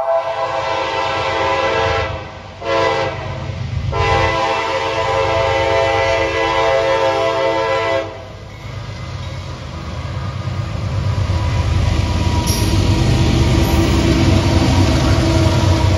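Air horn of a CSX GE ES44DC diesel locomotive sounding a chord: a blast that ends about two seconds in, a short blast, then a long one that stops about eight seconds in, the close of a grade-crossing signal. After that the locomotives' diesel engines and the freight train's wheels rumble, growing louder as the lead unit passes close by.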